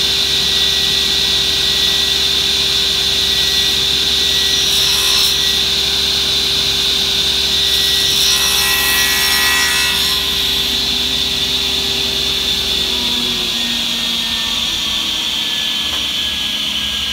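Table saw running steadily while its blade cuts through a wooden workpiece twice, cutting the 45-degree miter on a corner half-lap joint piece, first about four seconds in, then about eight seconds in. In the last few seconds the saw is switched off and its pitch falls as the blade spins down.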